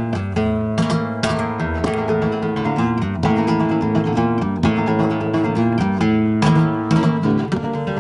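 Flamenco guitar played solo with the fingers: plucked notes and chords, broken several times by sharp strummed chords.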